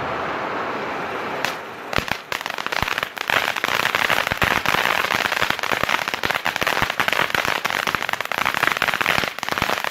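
Backyard fireworks: a steady hiss for the first second and a half, then a dense, rapid crackle of sharp pops from about two seconds in that keeps going.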